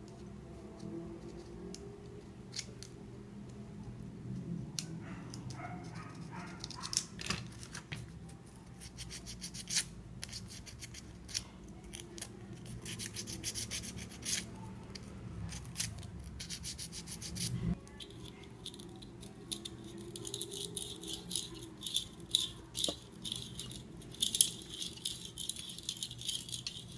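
Hand cleaning of a clip fan's motor parts and shaft: quick runs of scratchy rubbing strokes with small clicks and rattles of the parts being handled.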